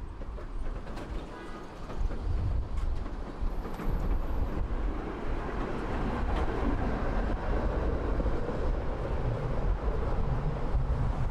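Tram in motion: a steady rumble of wheels on rails, dipping briefly early on and then growing fuller through the middle.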